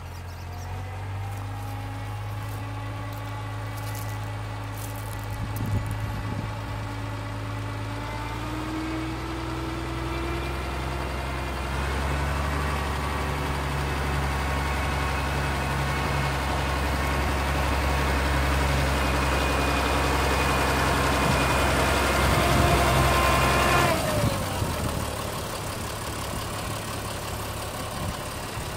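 International 955 XL tractor's diesel engine running as it drives along, its pitch rising about a third of the way in and growing louder as it comes closer. Near the end the engine note falls away suddenly and it runs on quieter and steady.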